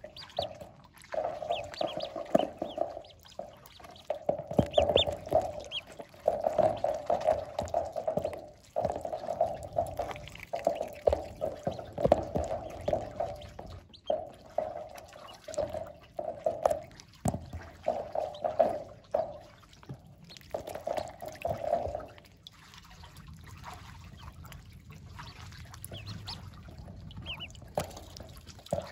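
Welsh Harlequin ducklings in a tub of water: repeated low chattering calls in bouts of about a second, with a few short high peeps, give way about two-thirds through to quieter trickling and splashing water as they swim.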